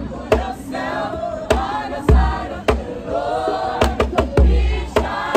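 A choir singing in harmony, several voices together, with sharp hits keeping time about every half second to second.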